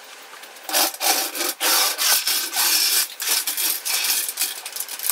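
A floor jack being rolled across a concrete garage floor: rough scraping and rasping in uneven strokes, roughly two a second, starting about a second in.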